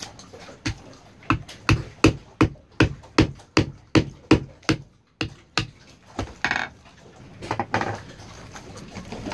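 Wooden mallet tapping the handle of a screwdriver to drive it through the eye of a coconut: a run of about fourteen sharp knocks, roughly three a second, stopping about halfway through, followed by a few softer handling sounds.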